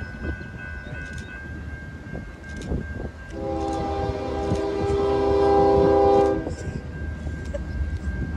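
Locomotive air horn sounding one long blast of about three seconds, several tones together in a chord, over the low rumble and clatter of a train.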